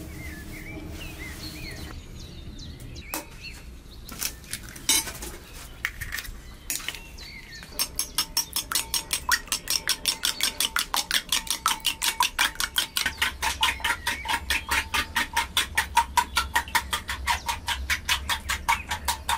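A kitchen utensil striking fast and evenly, about five sharp strokes a second, beginning about eight seconds in. Before it come a few short bird chirps and scattered knocks.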